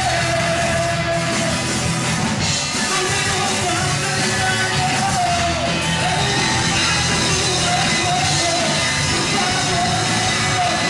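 Indie rock band playing live: electric guitars, bass and drums with a male singer holding a wavering melody.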